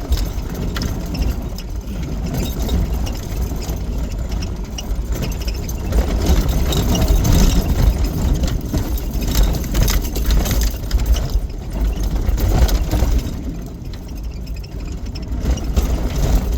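A Jeep driving on a rough dirt trail: a steady low engine and road rumble, with frequent rattles and knocks over bumps, loudest in the middle.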